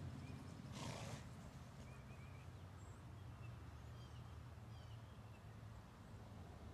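Faint outdoor ambience: small birds chirping now and then over a steady low rumble, with a brief rush of noise about a second in.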